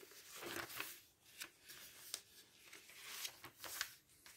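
Faint rustling of a glossy paper catalogue's pages as they are handled and turned over, a few soft brushing sounds spread through the moment.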